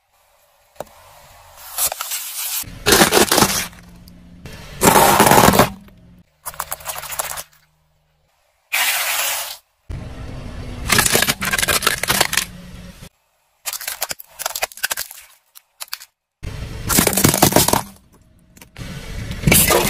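A car tyre crushing hard plastic toys, heard as repeated bursts of cracking and crunching separated by short pauses and cuts.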